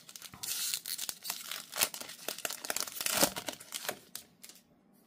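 Upper Deck Marvel Platinum trading-card pack wrapper torn open by hand and crinkling: a run of sharp crackles that dies away about four seconds in.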